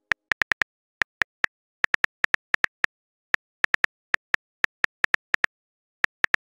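Phone keyboard typing clicks: sharp single taps coming in quick, irregular runs with short pauses.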